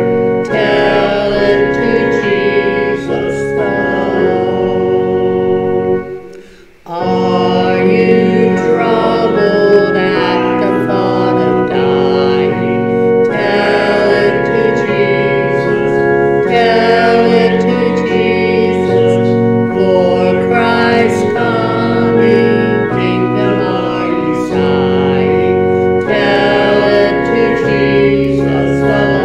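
A woman singing a solo hymn with organ accompaniment. Voice and organ break off briefly about six seconds in, then resume.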